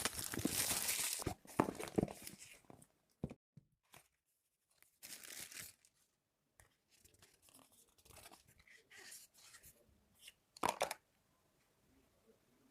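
Packaging of a smartphone box being torn open and handled: a long tearing rasp at the start, then shorter rips, clicks and crinkling rustles, and one more sharp tear near the end.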